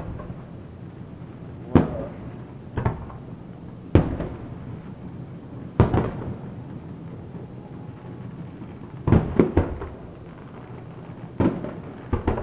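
Aerial firework shells bursting, about ten echoing booms at uneven intervals, with a quick cluster of bangs about nine seconds in and another near the end.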